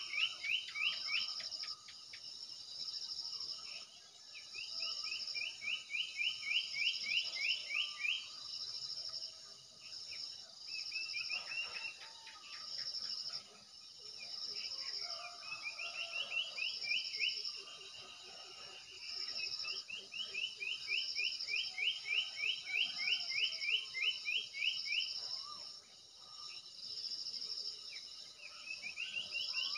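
Outdoor background of insects and birds calling: a steady high pulsing chirr repeating about once a second, with recurring bouts of fast rising chirps a few seconds long.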